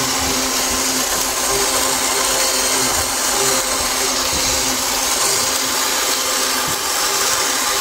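StemNex inline-six model engine kit running on its small electric motor, which drives the plastic crankshaft, pistons, camshafts, belts and fan with a steady whirring buzz.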